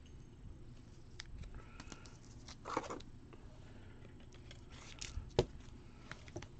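Faint handling of trading cards and packaging: soft rustles and light clicks, with a brief louder rustle near three seconds in and a sharp click a little after five seconds.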